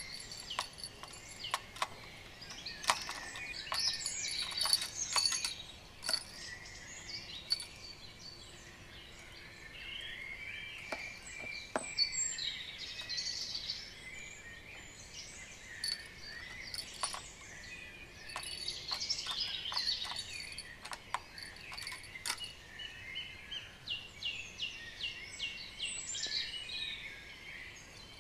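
Small songbirds singing and calling in woodland, in many short chirps and whistles, with a quick run of repeated notes late on. Scattered sharp clicks run through the calls.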